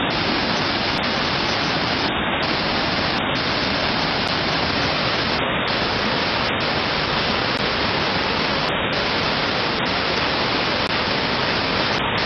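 Torrent of muddy floodwater rushing down a hillside, heard as a steady, unbroken rush of noise.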